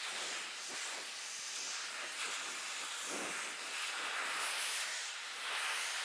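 Dyson Supersonic hair dryer blowing on the hair, a steady airy hiss that swells and dips a little as it is moved along the hair behind a round brush.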